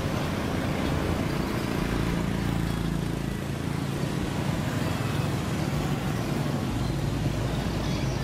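Street traffic, mostly motorbikes passing on the road, with a steady traffic noise.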